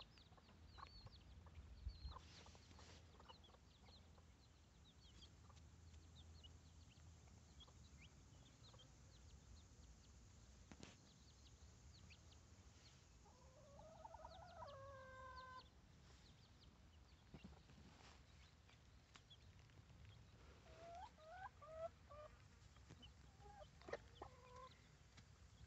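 Chickens in a run, faint: scattered small peeps from chicks, with hens clucking. About halfway through a hen gives one drawn-out call, and near the end come a few more short clucks.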